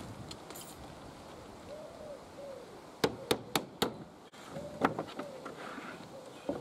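A pigeon cooing in soft, rising-and-falling calls, while sharp knocks on timber sound: four in quick succession about three seconds in, then single knocks later.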